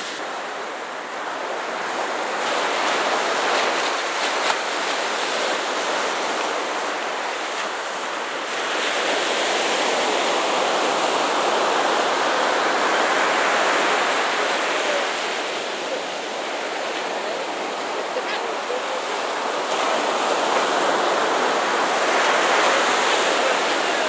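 Ocean surf breaking on the beach: a loud, steady rush of noise that swells and eases every several seconds as the waves roll in.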